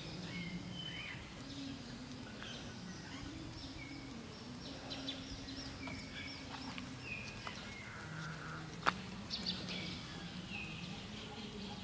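Outdoor ambience with birds chirping: many short whistled calls and glides over a faint steady low hum, broken by a single sharp click about nine seconds in.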